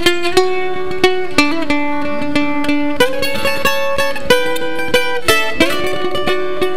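Acoustic bluegrass band playing the instrumental intro to a gospel song in the key of D, a mandolin picking the lead melody in quick, ringing notes over guitar.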